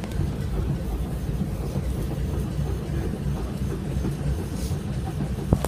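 Tram running along its track, heard from inside the passenger car: a steady low rumble of wheels and running gear. There is a single sharp click about five and a half seconds in.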